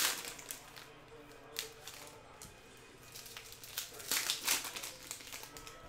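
Trading cards and a foil card-pack wrapper being handled: a few short crinkling rustles, with the loudest cluster about four seconds in.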